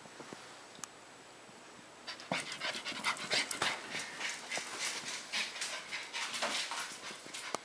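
Border Collie puppy panting rapidly close to the microphone, starting about two seconds in.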